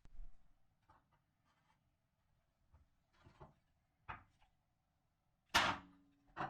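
Scattered knocks and clicks of objects being handled, the loudest a sharp knock about five and a half seconds in that rings briefly, followed by another knock at the end.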